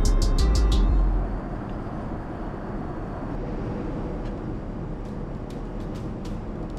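Steady rumble and rush of a jet airliner. A heavy low rumble in the first second or so eases off, and faint regular ticks run through the rest.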